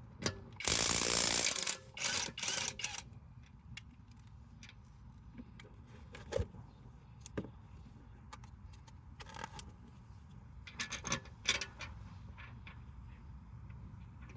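Impact wrench on a car's lug bolt: one hammering burst about a second long near the start, several short trigger pulls after it, and more short bursts about two-thirds of the way through. Metal clinks of the bolts and socket sound between the bursts.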